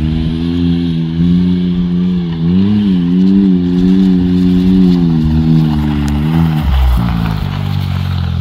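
2020 Can-Am Maverick X3's turbocharged three-cylinder engine running through an Aftermarket Assassins full exhaust with quiet core, at light throttle as the side-by-side drives, with a brief rise and dip in pitch a few seconds in. Near the end the engine note drops as it comes off the throttle.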